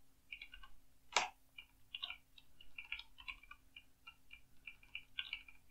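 Computer keyboard being typed on: quick, irregular keystrokes, with one sharper, louder click about a second in.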